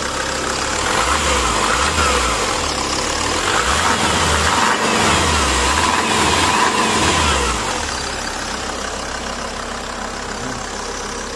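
SsangYong Musso 2.9 turbo diesel engine idling, then blipped up in revs several times in a row before settling back to idle near the end.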